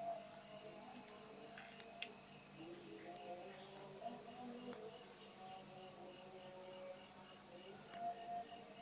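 Crickets trilling steadily at night, a continuous high-pitched chorus, with a few faint clicks.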